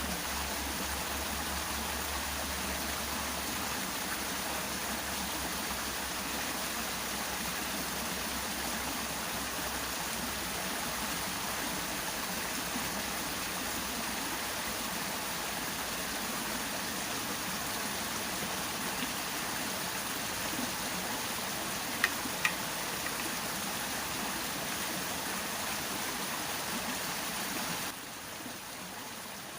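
Small stream's water flowing steadily, an even rushing sound. Two sharp clicks come about three-quarters of the way through, and the rushing drops a little in level shortly before the end.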